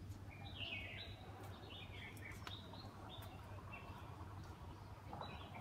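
Birds chirping faintly: a run of short calls that fall in pitch, over a low steady hum.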